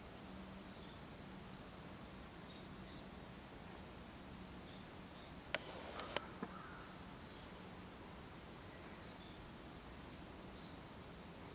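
Water flowing under and around thin creek ice, heard as a faint, even wash. Short, high-pitched chirps come every second or two, and a few sharp clicks sound near the middle.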